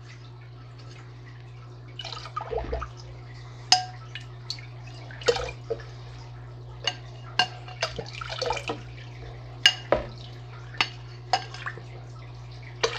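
Green water being poured and dribbled from a glass jar into a hexagonal tank: short splashes and drips with about a dozen sharp clinks of glass, over a steady low hum.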